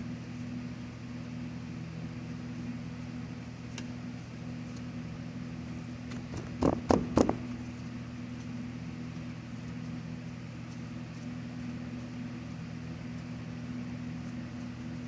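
A steady low mechanical hum, with three quick metal clinks about seven seconds in as a hub bearing bolt is worked into place from the back of the steering knuckle.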